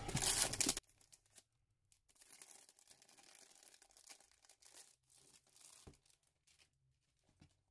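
Plastic film around a rolled diamond-painting canvas crinkling as it is unwrapped: loud for under a second, then abruptly much fainter, with scattered rustles.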